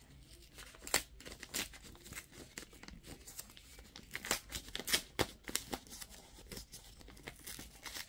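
Packaging on a boxed tablet being torn open by hand: a run of faint, crisp, irregular crackles and rips.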